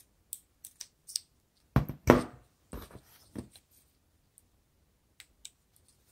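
Scissors snipping a plastic drinking straw into thin strips: a few quick, sharp snips. Then, about two seconds in, louder knocks and rustling as the straws and scissors are handled on the table. Light clicks of plastic straws follow near the end.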